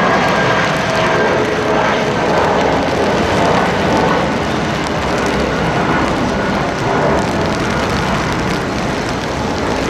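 Jet aircraft engine noise: a steady, loud rush with a high whine that drifts slightly down in pitch and fades over the first few seconds.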